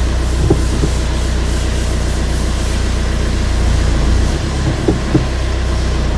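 Maruti Suzuki Swift engine idling steadily at about 1000 rpm, heard from inside the cabin, with a few light clicks.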